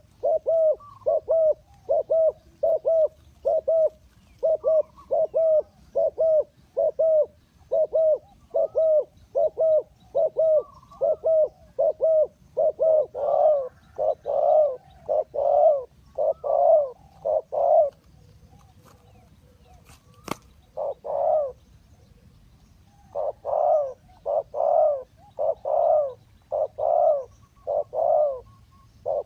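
Spotted dove cooing in a long series of short repeated coos, about two a second, which grow louder and longer past the middle. A pause of a few seconds near the middle holds a single sharp click.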